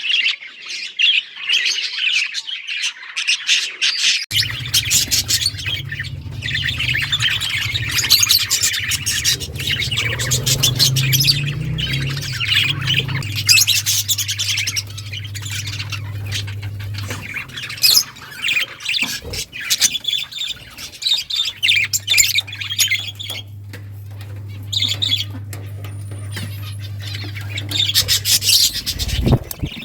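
Budgies chirping and squawking busily, many overlapping calls. Underneath is a steady low hum that starts about four seconds in, drops out for a few seconds past the middle, then returns.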